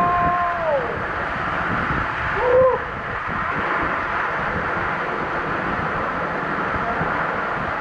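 Hot spring waterfall rushing steadily. A short hooting sound that falls in pitch comes right at the start, and another brief hoot follows about two and a half seconds in.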